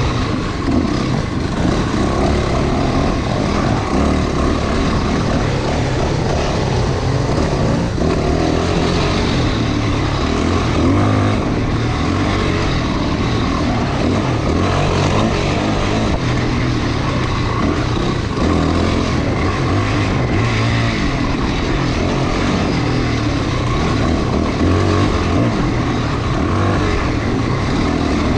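Dirt bike engine running steadily under way on a trail, with a loud, even rush of noise over it.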